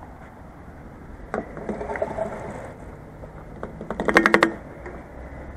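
Diesel fuel additive pouring from a small metal bottle into a car's fuel filler neck. There is a single click about a second in, and a quick run of glugs about four seconds in.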